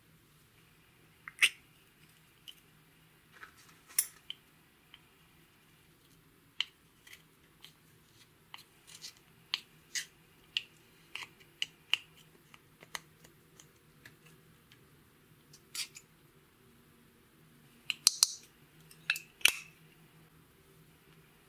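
Scattered small clicks and taps of a plastic makeup compact and a small tool as pressed eyeshadow is crushed in its pan and tipped into a glass dish, with a quick run of louder clicks near the end.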